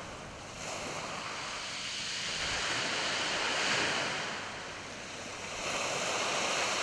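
Small waves of a calm sea washing on a shingle beach. The wash swells, eases off about five seconds in, then builds again.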